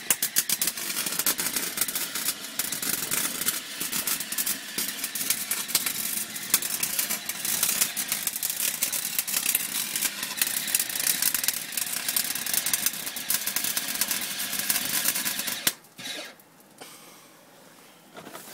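Electric welding arc crackling and spitting steadily, then cutting off suddenly near the end.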